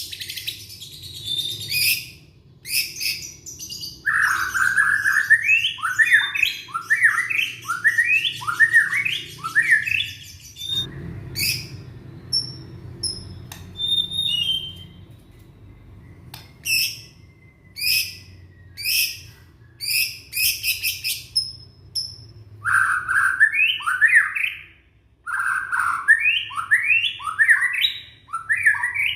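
Young white-rumped shama (murai batu) singing. It gives runs of quick rising whistled notes, about two a second, mixed with sharp high notes. A sparser middle stretch holds only scattered high chips.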